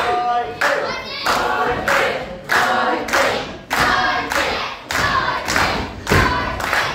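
Small crowd chanting together in unison, kept to a steady beat of claps or stamps about one and a half a second.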